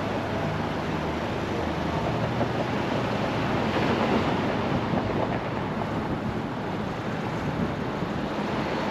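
City street traffic: cars driving past close by, a steady rush of tyre and engine noise that swells about four seconds in as a car passes and then eases.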